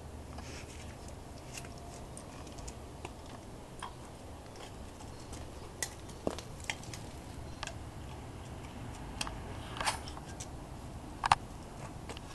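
Small dog digging in a garden bed of dirt and wood-chip mulch, paws scratching and scattering twigs and chips in irregular clicks and crackles, with one sharper snap near the end.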